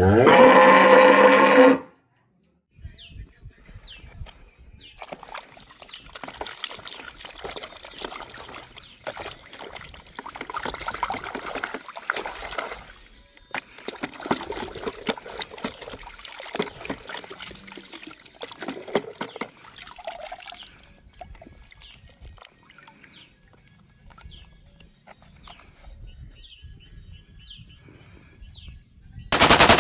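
Water trickling and splashing as toy cars are washed, at a moderate level and fading out after about twenty seconds. It is preceded by the loud tail of a cow moo in the first two seconds. A loud burst of rapid machine-gun fire starts right at the end.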